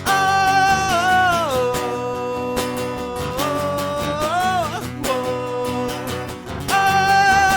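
A man singing long, wordless "oh" notes that bend and slide in pitch, three held notes in all, over a strummed guitar.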